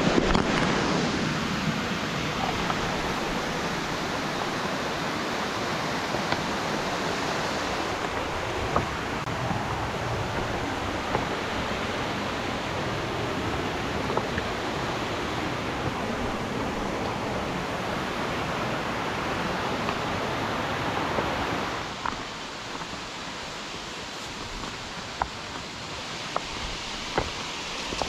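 A steady rushing noise that drops somewhat in level about 22 seconds in, with a few faint clicks.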